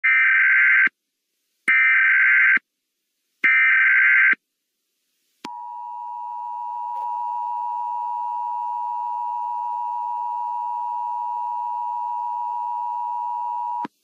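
Emergency Alert System tones: three short bursts of SAME header data, then the steady two-tone EAS attention signal (853 and 960 Hz). The attention signal swells slightly over its first second or so, holds for about eight seconds and cuts off.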